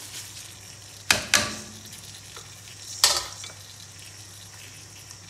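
Soaked rice tipped from a plastic strainer into a pot of boiling water, over the steady hiss of the boil. Three sharp knocks ring out, two close together about a second in and one about three seconds in.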